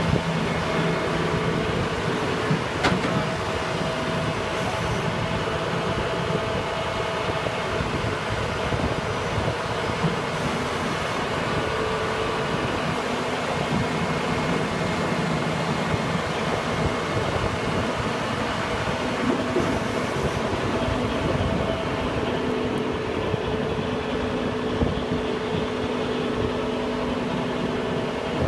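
Kuhn Knight Botec 4063 truck-mounted four-auger mixer and its Western Star truck running: a steady mechanical drone with faint steady hums.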